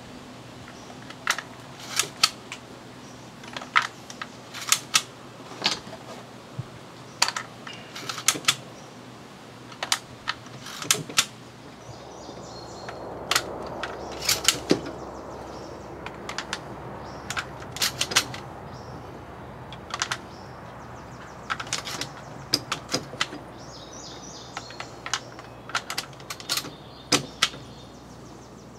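12-gauge shotshells being pushed one by one into the twin magazine tubes of a Kel-Tec KSG pump shotgun: sharp metallic clicks, often two or three in quick succession, about once a second.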